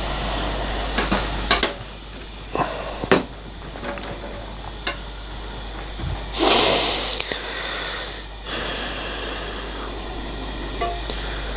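Gas brazing torch burning with a steady hiss, its tip just cleaned of a blockage. There are several light metallic clicks and taps in the first few seconds and a brief louder surge of hiss about six seconds in.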